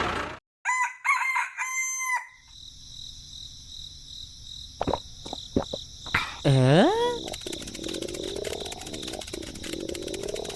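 A rooster crowing in several pitched syllables about a second in. It is followed by a steady high whine, a few sharp clicks and a loud swooping glide in pitch.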